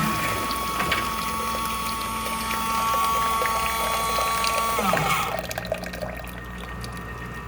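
Coffee machine's rinse cycle: the pump runs with a steady whine as water pours into the cup. About five seconds in, the whine slides down in pitch and stops, leaving a quieter hum.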